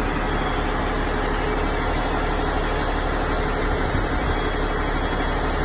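Freightliner Cascadia semi truck's diesel engine idling steadily.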